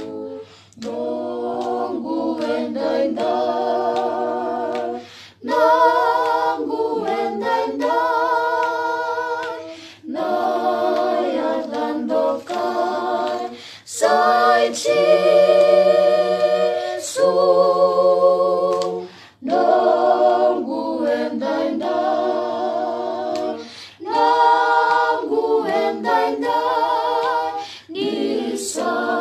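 A small family choir of adults and children singing a song in Fijian a cappella, several voices in harmony. The singing comes in phrases of a few seconds, with short breaks for breath between them.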